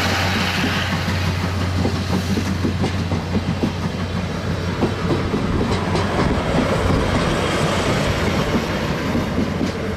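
A train running past, with a steady low hum for the first few seconds, then wheels clattering irregularly over the rail joints.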